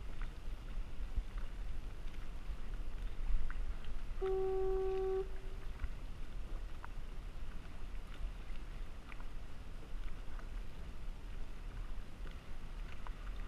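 A foghorn sounds one steady, clear note for about a second, a few seconds in, over a steady low rumble and scattered small clicks.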